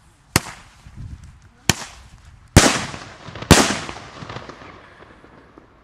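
Sharp firecracker bangs from a Funke Iskra Blitz Rums 100-shot salute battery. Two smaller cracks come first, then two loud reports about a second apart, each with a long echoing tail. Then the battery stops after only two of its shots.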